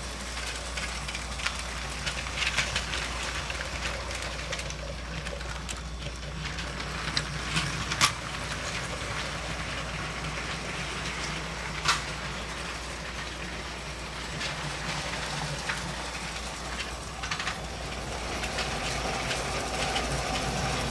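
Battery-powered LEGO train running on plastic track: a steady motor hum and the rattle of the wheels on the rails, with a few sharp clicks, the strongest about 8 and 12 seconds in.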